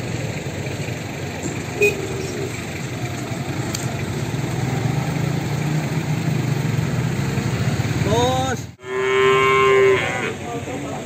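Cattle mooing at a livestock market: a short rising call a little past eight seconds, then one long, loud, steady moo near the end. A steady low hum runs underneath.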